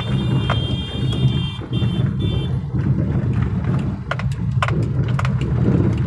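Road traffic heard from a moving vehicle: a steady low engine and road rumble. A high-pitched steady tone sounds for about the first two and a half seconds, and a few short knocks come later on.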